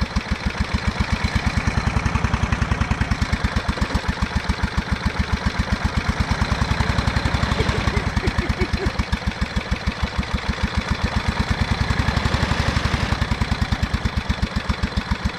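Briggs and Stratton lawn tractor engine running with its oil drained, hammering with a fast, even knock: the sign of the engine failing from running dry.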